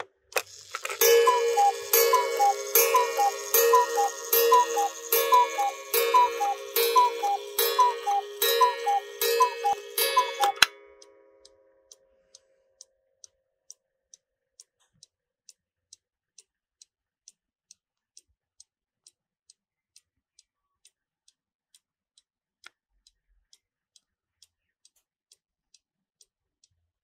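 Engstler 732 one-day mechanical Black Forest cuckoo clock calling: its two-note cuckoo call repeats roughly once a second for about ten seconds, with a click at each call. The call then stops, and the movement goes on ticking quietly and steadily.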